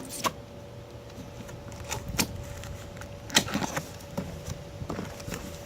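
Cardboard shipping box being handled and opened by hand: a scattering of sharp clicks and knocks, the loudest about three and a half seconds in, over a faint steady hum.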